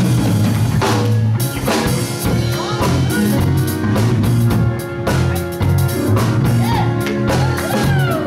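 Live band of drum kit, electric bass and keyboard playing a gospel song with a steady beat and a prominent bass line.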